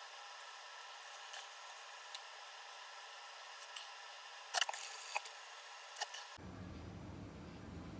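Faint wet squishing and small clicks of marinated beef and vegetable pieces being pushed onto a metal skewer by hand, with a few sharper clicks about four and a half to five seconds in and once more near six seconds. A steady low hum comes in suddenly about six and a half seconds in.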